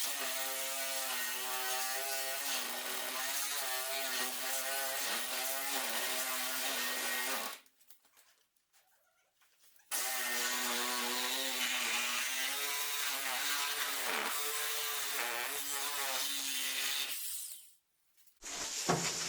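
Reciprocating saw with a DeWalt Double Life blade cutting through car body sheet metal in two long runs with a pause between. The motor's pitch wavers as it bogs under load. The blade is worn, missing a few teeth, and overheated on this cut.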